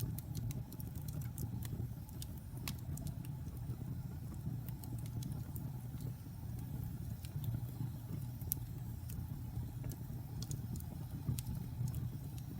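Fire crackling: a steady low rumble with irregular sharp pops and snaps scattered throughout.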